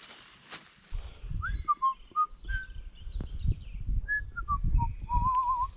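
A man whistling a short tune of brief notes that slide up and down, ending on a wavering held note. Low buffeting rumbles on the microphone run under it.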